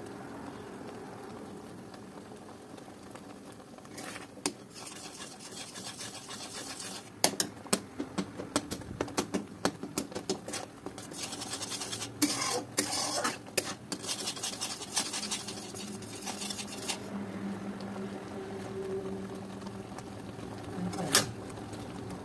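Steel spatula scraping and knocking against a steel pot as it stirs thick mango pulp, over a steady low hum. A run of sharp taps comes about seven to eleven seconds in, then several seconds of scraping, and a last knock near the end.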